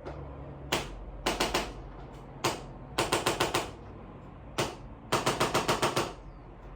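Handheld chiropractic adjusting instrument clicking in repeated rounds. Three times a single sharp click is followed about half a second later by a quick run of clicks, about eight to ten a second, each run longer than the last: about four, then six, then eight clicks.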